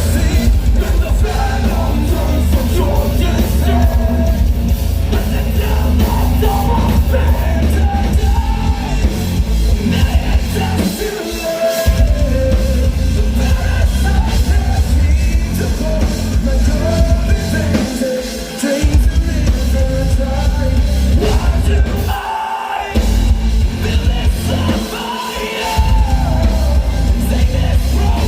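Metalcore band playing live: heavy distorted guitars and pounding drums with sung and yelled vocals. The heavy low end cuts out briefly several times in stop-time breaks before crashing back in.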